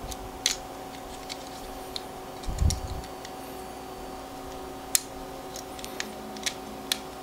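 Small plastic and metal parts of a MakerBot Smart Extruder clicking and tapping as they are handled and fitted back together, about a dozen scattered clicks with a dull knock about two and a half seconds in. A faint steady hum runs underneath.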